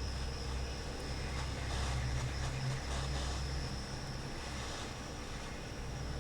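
Hot air rework station blowing steadily over the laptop board to desolder a MOSFET: an even rush of air with a low fan hum, a little stronger in the middle.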